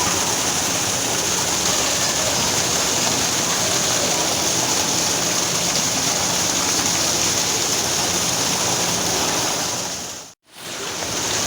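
Steady rushing of a waterfall, an even roar of falling water. It cuts out for a moment near the end and comes straight back.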